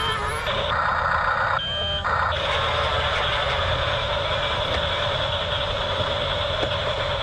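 Double Eagle 579 toy RC bulldozer running, with a high beep repeating like a reversing alarm for the first couple of seconds. After that a steady high whine holds over a rattly mechanical bed.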